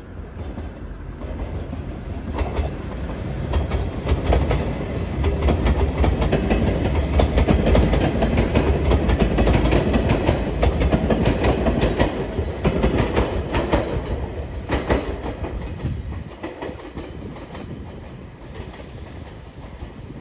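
A train passing, its wheels clacking rapidly over the rail joints; it grows louder, stays loud for several seconds, then fades away.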